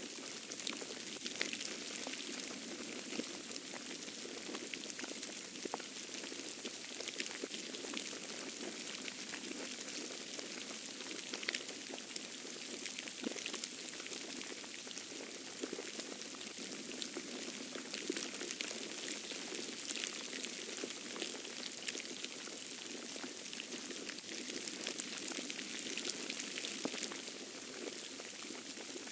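Snow falling in a storm: a steady, dense patter of fine ticks as flakes land on surfaces.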